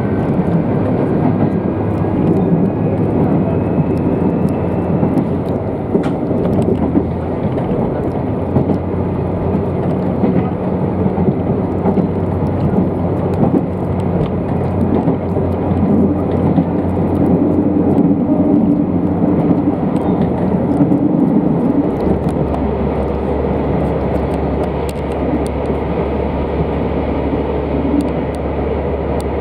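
Tarumi Railway diesel railcar running along the line: a steady engine drone with wheel and rail noise. The engine note drops lower about two-thirds of the way through.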